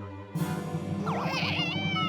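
Cartoon background music that jumps louder about a third of a second in; about a second in, a sound effect wobbles quickly up and down in pitch over it.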